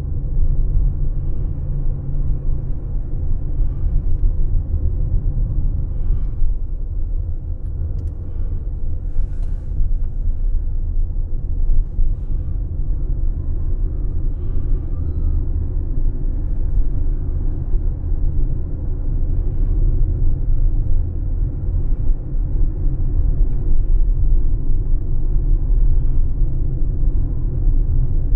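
A car driving at low speed on a suburban road: steady low rumble of tyres on the road surface and the engine, with no speech.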